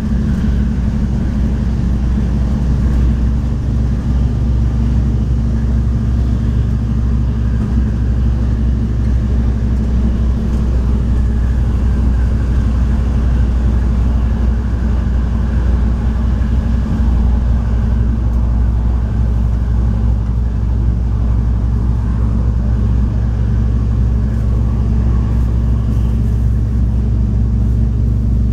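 Inside a Stadler GTW diesel light rail car under way: the diesel engine's steady low drone with the rumble of the wheels on the rails.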